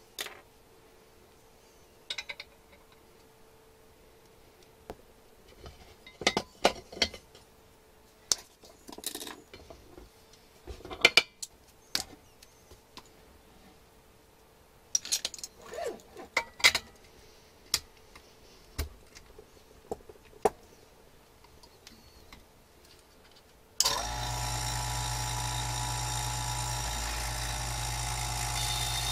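Metal fittings clinking and clanking in scattered knocks as brass quick connectors and a hose fitting are threaded together and tightened with a wrench. About 24 seconds in, an electric vacuum pump switches on abruptly and runs with a steady hum and whine.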